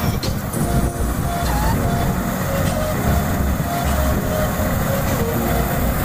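Combine harvester at work cutting wheat: its diesel engine and threshing machinery running under load, a steady, dense mechanical din that grows a little as the machine comes closer.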